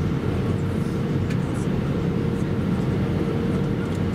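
Steady cabin noise aboard an Airbus A320-232 in flight: a dense, even rumble of engine and rushing air heard from inside the cabin, with a faint steady hum.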